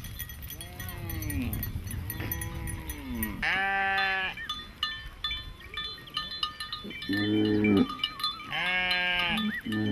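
A herd of cattle and calves calling: several drawn-out calls that rise and fall in pitch. Bells clink among the animals.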